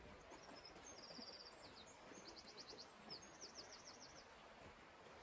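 A small songbird sings high, fast trilled phrases, each a rapid run of short notes, from about half a second in until about four seconds in. Underneath is the faint steady rush of the flowing river.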